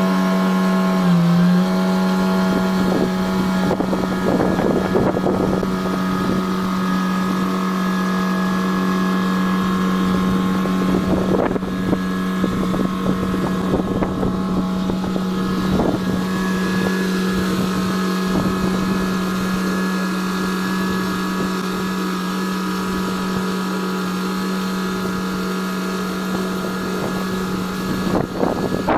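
Haulotte construction vehicle's engine running at a steady speed, with a brief dip in pitch about a second in. Gusts of wind on the microphone come and go over it.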